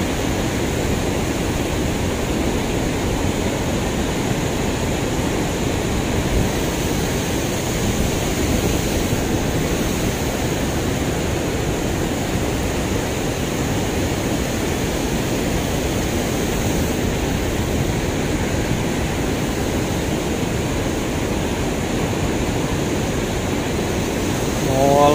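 Water rushing steadily through a river weir, a constant even noise with no breaks.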